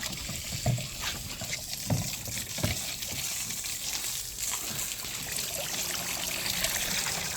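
Water trickling through a Step2 Rain Showers Splash Pond plastic water table, a steady trickle with a few brief low sounds in the first three seconds.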